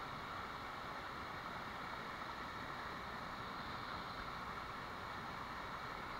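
Mountain stream rushing over a small rocky cascade into a pool: a steady rush of water.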